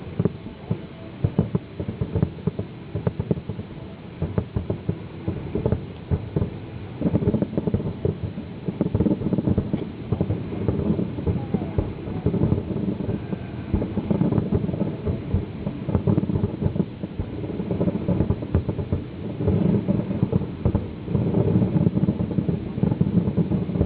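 Fireworks bursting in a dense barrage of rapid bangs, with heavier, thicker volleys about a third of the way in, midway and towards the end.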